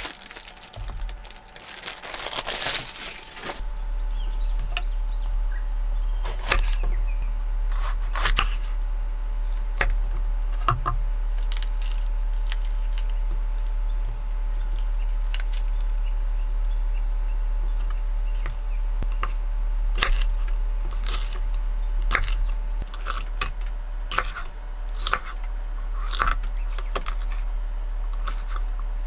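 A plastic produce bag crinkling as green peppers are pulled out of it. Then a kitchen knife cuts green peppers on a wooden cutting board, giving scattered single knocks of the blade on the board. A steady low hum runs under the knocks.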